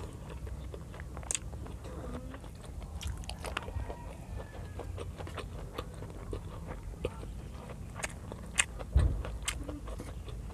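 Close-miked chewing and small clicks of the mouth while eating string bean adobo and rice by hand, with fingers scraping food across the tray. A steady low hum runs underneath, and a low thump about nine seconds in is the loudest moment.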